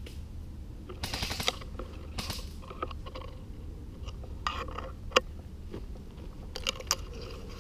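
Rustling and crunching of brush and gear as a player shifts about in undergrowth, in several short bouts, with one sharp click a little past halfway, over a steady low rumble.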